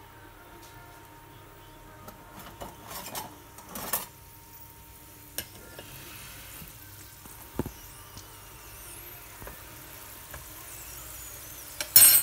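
Thin sheet of pastry dough frying in hot oil in a frying pan: a faint sizzle that builds slightly as it bubbles, with a few light clicks and a sharp clatter near the end.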